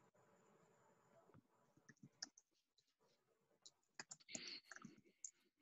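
Near silence, with faint scattered clicks of typing on a computer keyboard, more of them in the second half.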